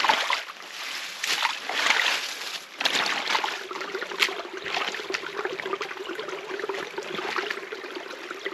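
Meltwater trickling through a freshly dug drainage channel in mud. During the first few seconds there are irregular splashes and squelches of boots and hands working in the wet mud, after which the running water goes on more evenly.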